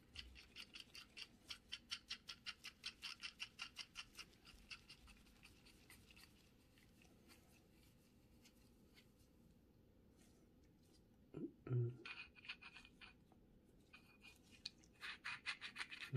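Light metallic ticking, about five a second, from Dura-Ace front hub parts being worked on the axle. The ticking slows and dies away after about six seconds, followed by a few faint clicks and a short low sound near twelve seconds.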